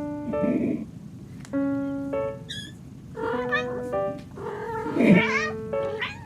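Young kittens mewing in several short, high-pitched, wavering cries, over background music of held notes.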